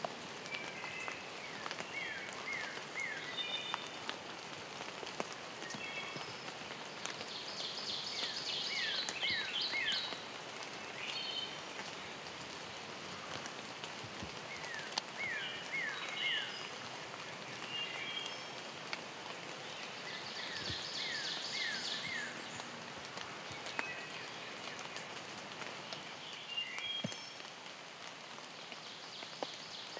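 Steady rain falling on the leafy woods, with songbirds singing short phrases of quick high notes over it; one loud, rapid phrase comes twice, about twelve seconds apart.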